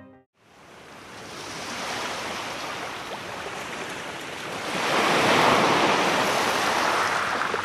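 Sea surf washing in, a steady rush that builds and swells into a louder breaking wave about five seconds in.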